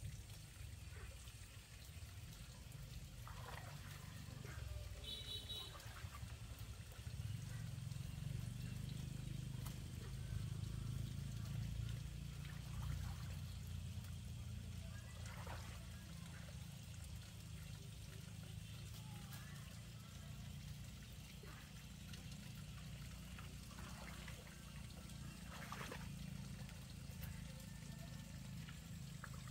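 Faint trickling water under a steady low rumble, with a few soft rustles now and then and a brief high chirp about five seconds in.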